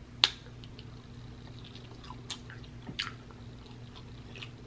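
Close-miked eating sounds of a sticky, sauce-glazed BBQ beef rib being bitten and chewed: scattered wet mouth clicks and smacks. The sharpest click comes about a quarter second in.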